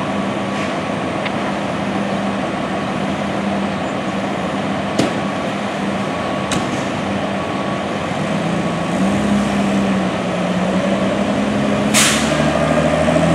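Diesel engines of fire apparatus idling steadily, with the engine note shifting about two-thirds of the way through. Near the end comes a short, sharp hiss of air, typical of an air brake being released as the engine gets ready to pull out.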